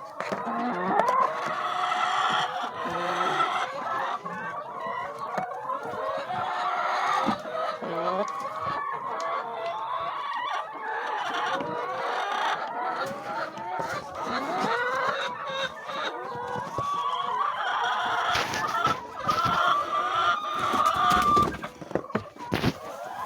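A flock of chickens clucking and calling over one another without a break, with scattered sharp knocks among the calls.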